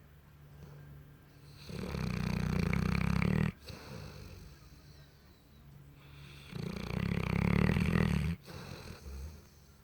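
Mastiff snoring in its sleep: two loud snores about five seconds apart, each lasting around two seconds and cutting off sharply, with quieter breaths between them.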